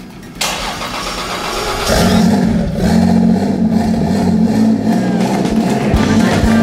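Freshly rebuilt Toyota 2JZ-GTE twin-turbo inline-six firing on its first start, about half a second in. About two seconds in it settles into a loud, steady running note.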